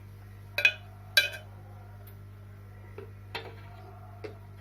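A metal spoon clinking against a pot of tea simmering on the stove: two sharp, ringing clinks in the first second and a half, then a few fainter taps, over a steady low hum.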